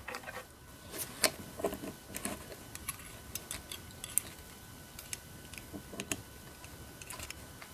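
Small irregular metal clicks and light scrapes of a tool prying the retaining C-clip off the back of a lock cylinder.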